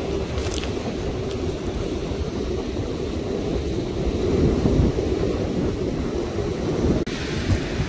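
Wind buffeting the microphone, a steady low rumble, over the wash of ocean surf on a pebble beach.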